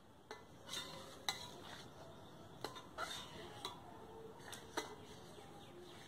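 Metal ladle stirring thick dal in a metal kadhai, scraping and knocking against the pan in about eight irregular clinks.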